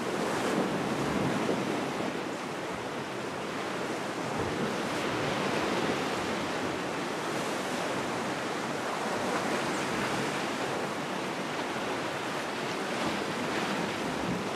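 Sea waves breaking and washing over rocks in a steady rush of surf, with some wind on the microphone.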